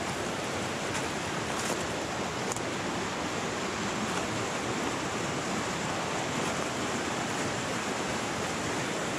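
Mountain creek rushing over rocks: a steady, even roar of fast-flowing water.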